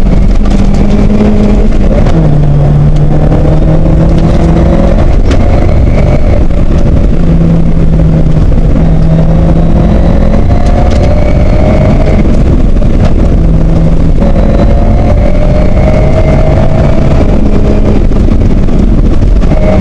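Toyota Corolla KE55 rally car's engine heard from inside the cabin, revving up hard and dropping back several times as it shifts through the gears, over a constant rumble of tyres on gravel.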